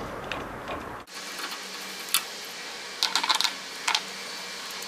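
Light metallic clicks and clinks of a flathead screwdriver and screw as the standard distance gauge is unscrewed from a wheel balancer: one click about two seconds in, a quick cluster about three seconds in, and another near four seconds.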